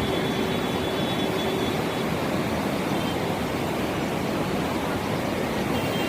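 Steady rush of the flooded Godavari river, an even, unbroken roar of fast-moving water.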